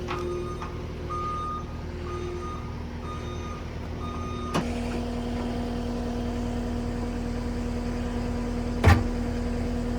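Repeated short electronic beeps, like a vehicle's reversing or parking-sensor warning, over a low vehicle rumble. About halfway through a click is followed by a steady hum, and a sharp knock comes near the end.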